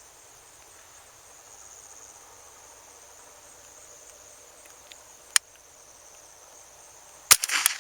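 Two sharp shots from a Savage 64 semi-automatic .22 LR rifle firing tracer rounds, about two seconds apart. The second is followed by a brief burst of noise. Crickets chirp steadily underneath.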